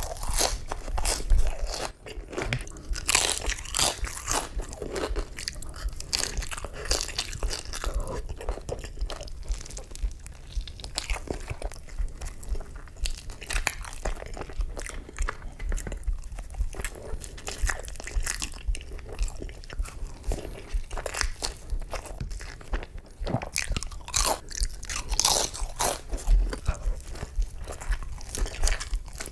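Close-miked eating of crunchy fast food: repeated crisp bites and crunching chews, in irregular bursts of cracks with no pauses of quiet.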